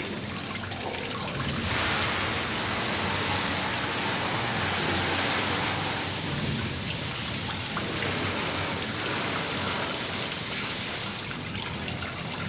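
Zinfandel grape juice running and dripping from a wine press into its collection tray: a steady, rain-like splashing of liquid, heavier from about two seconds in until near the end.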